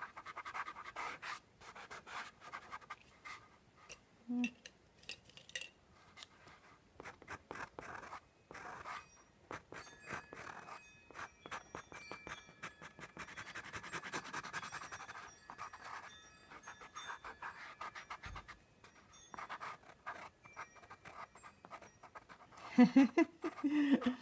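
Coloured pencil scratching on textured drawing paper in quick short strokes, broken by brief pauses, as a figure is shaded in.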